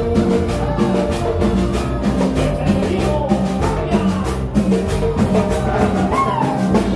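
Live band playing rock music with a drum kit keeping a steady beat of about four strokes a second.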